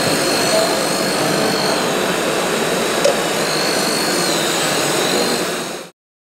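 A 1:8 scale RC Caterpillar M322C wheeled excavator's hydraulic pump whining while it digs, the high whine rising a little in pitch twice as it works, over the steady noise of a busy exhibition hall. The sound cuts off suddenly near the end.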